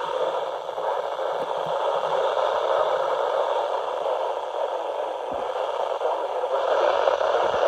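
Radio static: a steady hiss confined to a receiver's narrow audio band, with no clear speech, broken by a couple of faint low thumps.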